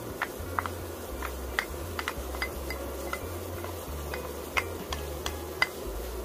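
Cubes of pork belly frying in rendered fat in a stainless steel pan: a steady sizzle with irregular sharp pops of spitting fat, the meat at the golden-brown stage as sliced garlic goes in.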